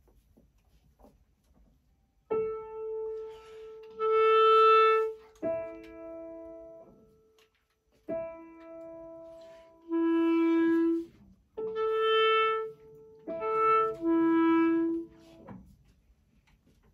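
Clarinet tuning to a grand piano: the piano sounds a short note or chord and the clarinet answers with a held note at a matching pitch, four times over. Each clarinet note is steady and louder than the piano note before it.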